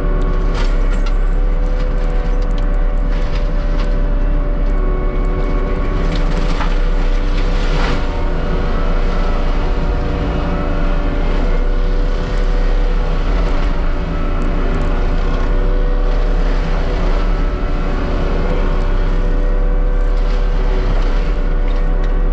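Diesel engine of heavy land-clearing machinery running steadily, with a few sharp cracks heard over it, about half a second in and around seven and eight seconds in.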